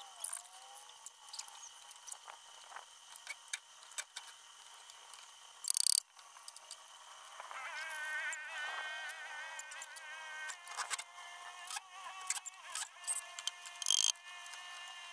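Scattered sharp taps, clinks and knocks of hand tools on PVC pipe and fittings as a pipe waterer is put together, with a louder scraping burst about six seconds in. A wavering tone rises in the background for a few seconds past the middle.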